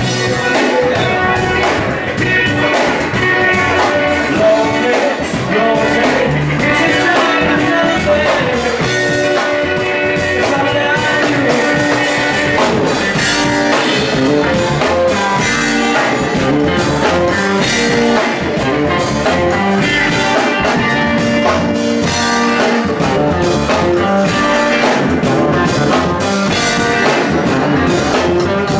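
Live blues-rock band playing: electric guitar, upright double bass and drum kit, with a steady beat.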